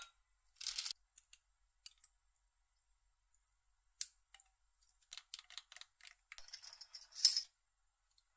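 Light clicks and clinks of glassware being handled, then a run of small crackles and clicks, ending in a short, bright glassy clatter about seven seconds in as a clip-top glass jar is opened and a spoon goes in for dried lemon slices.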